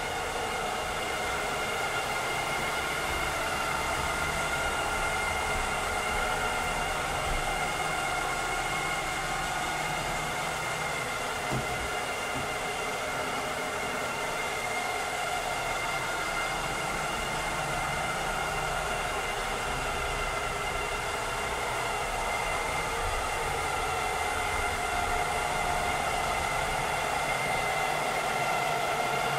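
Robotic vacuum cleaner running steadily: a constant whir of its suction fan and brushes with a steady high hum, and a faint tick about eleven seconds in.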